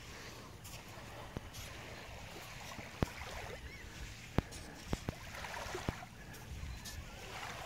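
Small ripples lapping on a sandy shore in shallow water, swelling and fading every second or two, with a few sharp clicks scattered through.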